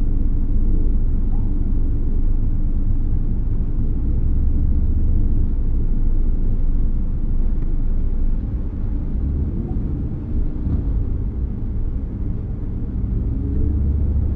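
Steady low rumble of a slow-moving ambulance, engine and road noise heard from inside its cab, a little quieter for the last several seconds.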